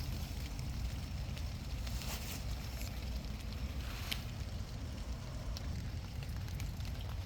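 Rain falling, with scattered drops ticking sharply over a steady low rumble.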